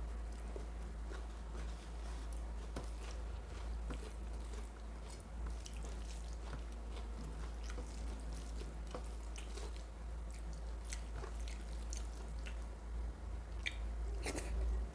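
Chewing and biting while eating mutton curry with rice: irregular small mouth clicks, a louder stretch near the end, over a steady low hum.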